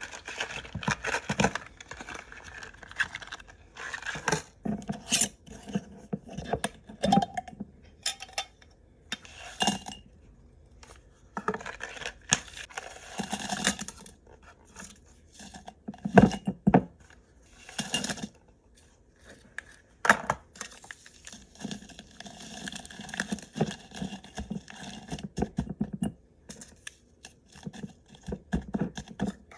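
Medicine bottles and packages being handled and set down during a restock: a string of irregular clinks, knocks and clatters, with stretches of scraping as items are slid into place.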